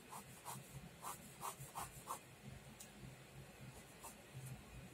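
Pen scratching on paper in short, faint drawing strokes, several in quick succession over the first two seconds and a few more spaced out later.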